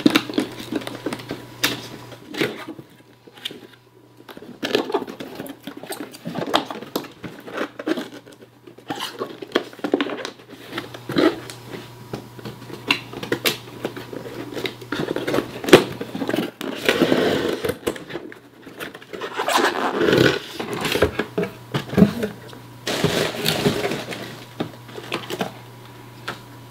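Cardboard box and packaging being handled and rummaged through by hand during an unboxing: irregular knocks, scrapes and clicks, with longer stretches of rustling about two-thirds of the way in and near the end.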